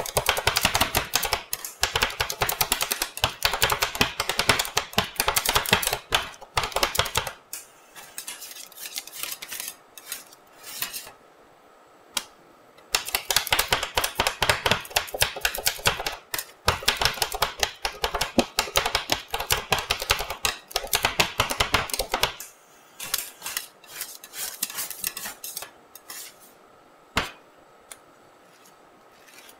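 Two metal spatulas rapidly chopping cookies into ice-cream base on a steel cold plate for rolled ice cream: fast clacking of blade edges on the metal, in two long runs with a sparser stretch between. After about 22 seconds the chopping stops and quieter scraping follows as the mix is spread flat, with one sharp clack near the end.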